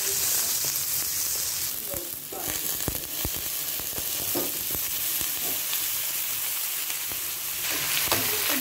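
Chicken feet sizzling in hot oil in a pan, a steady frying hiss with a few sharp utensil knocks about three seconds in. The hiss eases briefly about two seconds in and again near the end.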